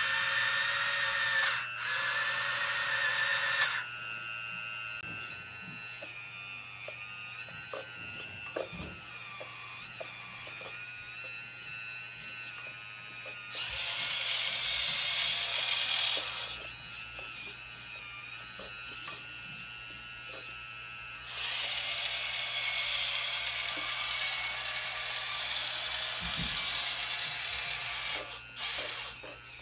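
Huina 580 RC hydraulic excavator's electric motor pump whining steadily, growing louder and rougher three times as the controls work the hydraulic cylinders of the boom, arm and bucket.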